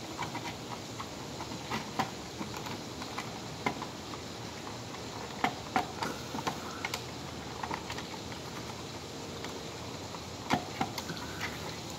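Scattered sharp plastic clicks and taps at irregular intervals as a Simplex horn strobe's plastic housing is handled and pushed up into place against its mounting.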